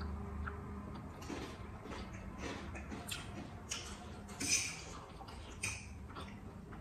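Close-up eating sounds of instant noodles: chewing and slurping mouth noises with small clicks of forks, in short irregular bursts, the loudest about four and a half seconds in.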